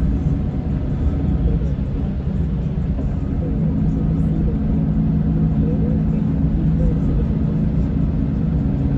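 Scania K410 coach's diesel engine running with a steady low rumble. Its engine note grows stronger and more even about three and a half seconds in.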